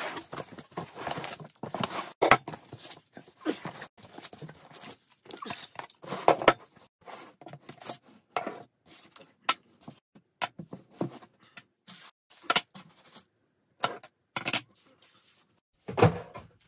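Unpacking by hand: a cardboard box and its foam packing rustling and scraping, with irregular knocks and clatters as pedals, a seat and a handle are set down on a wooden table.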